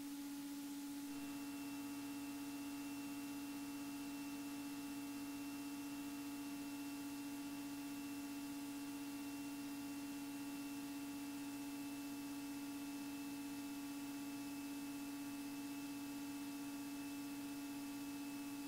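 Faint steady electrical hum on the aircraft's intercom audio feed: several held tones, the lowest the strongest, with a couple of higher ones joining about a second in. No engine or propeller sound comes through.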